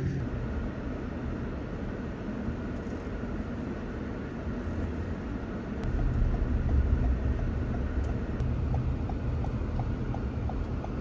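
A car driving, a steady low engine and road rumble that gets louder about halfway through. A faint quick ticking comes in over the second half.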